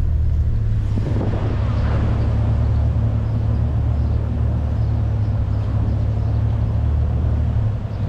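Jeep Cherokee Sport driving slowly, heard from inside the cabin: a steady low engine and road rumble.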